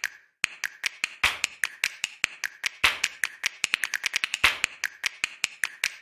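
Skipping rope slapping the hard court on each turn, mixed with the light landings of the jumper's shoes: a quick, steady run of sharp ticks, several a second, with a few louder smacks.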